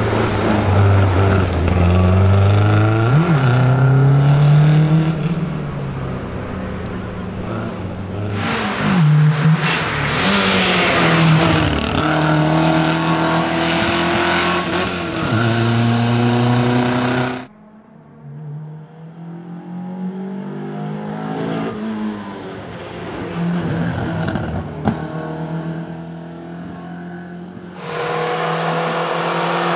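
Renault 5 Alpine rally car's four-cylinder engine revving hard as it accelerates through the gears. The note climbs in pitch and drops back at each gear change, over a few separate passes.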